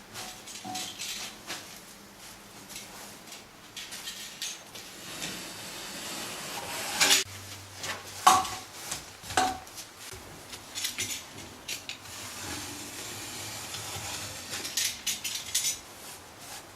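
Scattered clinks and knocks of hand work with metal fittings, with a few louder ringing knocks about seven to nine and a half seconds in.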